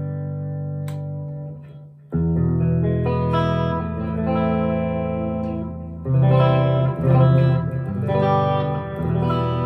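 PRS SE Custom 24 electric guitar played on a clean tone through a Line 6 Catalyst 60 amp. A chord rings out and fades away, then about two seconds in the player starts picking a new run of chords and notes.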